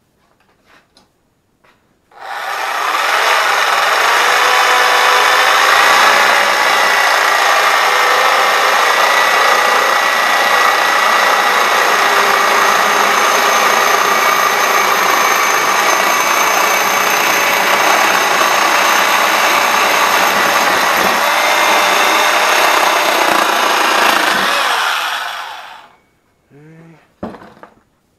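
Reciprocating saw cutting through a metal pipe: loud and steady for over twenty seconds, with a faint metallic ringing over it. It starts about two seconds in and stops near the end, followed by a few light knocks.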